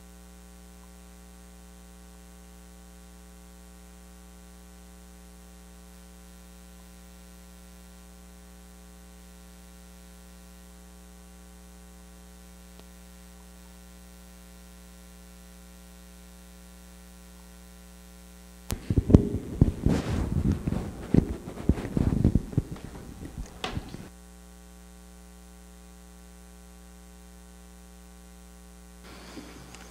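Steady electrical mains hum from a church sound system. Past the middle, about five seconds of loud, irregular knocking and rubbing come through it as a microphone is handled.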